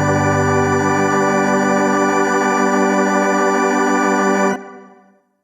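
A single sustained chord held steadily as the last sound of a song, released about four and a half seconds in and dying away to silence.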